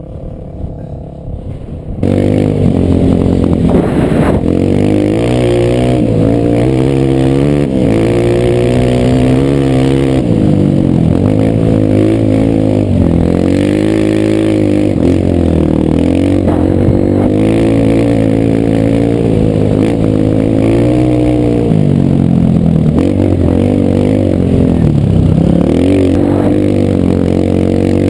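Single-cylinder four-stroke dirt bike engine under way, revving up and dropping back over and over as the rider works the throttle and gears. Quieter for the first two seconds, then loud.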